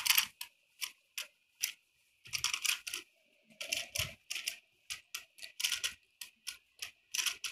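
Irregular run of short plastic clicks and rattles from a toy RC car and its steering-wheel remote being handled and tilted, a few clicks a second with gaps between.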